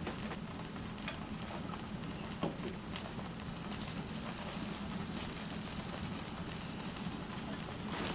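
Beaten eggs frying in vegetable oil in a pan, a steady sizzle, with a few faint taps in the first few seconds.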